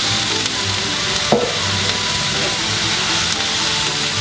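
Shirataki noodles and chicken sizzling steadily in a hot skillet of coconut oil as the noodles go in, with one sharp tap a little over a second in and a spatula stirring through them near the end.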